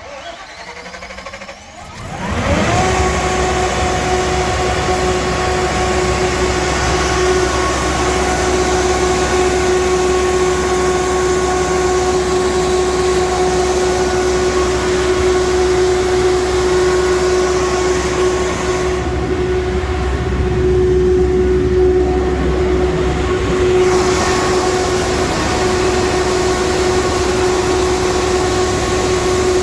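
Kohler 150 kW natural gas generator's 8.8-litre PSI V8 being started: about two seconds of cranking, then it catches and quickly rises to a steady governed speed, running on with an even, pitched hum.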